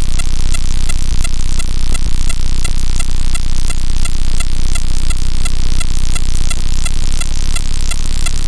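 Background music with a steady, fast beat and a heavy bass.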